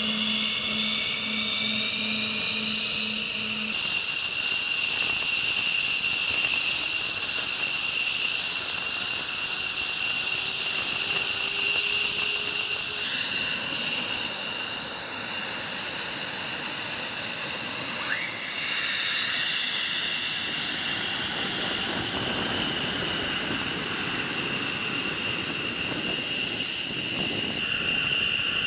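F-15 Eagle fighter jets' engines running at idle: a steady high-pitched whine over a rushing jet noise. The sound shifts abruptly a couple of times.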